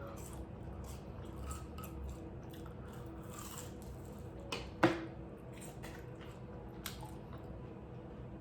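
Someone chewing a pizza puff bacon cheeseburger with wet, squishy mouth noises and small smacks. One sharp, much louder click comes about five seconds in.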